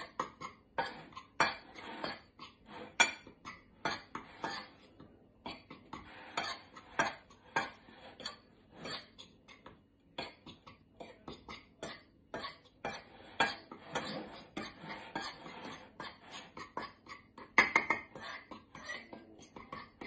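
Metal fork scraping and clinking against a plate in many quick, irregular strokes while stirring seasoned flour.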